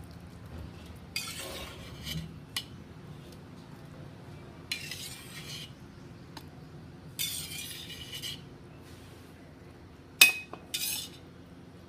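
Steel ladle scraping and clinking against a steel kadai and steel tray as fried bread cubes are scooped from the oil and tipped onto the tray: four short scraping bursts, with one sharp clink about ten seconds in, the loudest.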